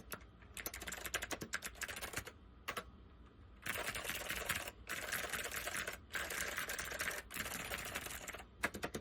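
Typing on a Northgate OmniKey 101 keyboard with waxboiled Alps SKCM White switches. Quick separate keystrokes give way to a lull about two and a half seconds in. Then come four runs of about a second each, where the keystrokes run together into a dense clatter, before separate keystrokes return near the end.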